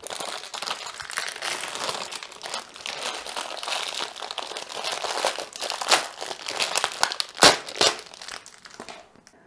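Thin clear plastic packaging bag crinkling and rustling as it is pulled open by hand to take out a roll of double-sided tape, with two sharper crackles in the second half.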